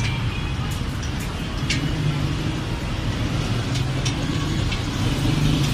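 Steady low rumble of motor vehicles in street traffic, with a few light clicks scattered through it.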